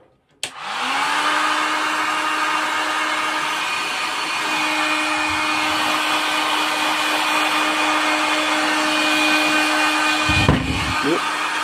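Electric heat gun switched on with a click, its fan motor spinning up to a steady whirring hum over the hiss of the blowing air, then switched off, its pitch falling away at the end. A few low bumps near the end.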